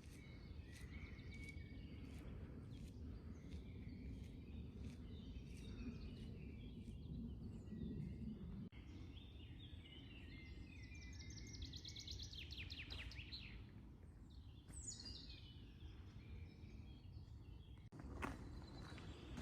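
Faint songbirds singing and calling, with a quick trilled phrase just past the middle and a falling whistled note a little later, over a steady low outdoor rumble.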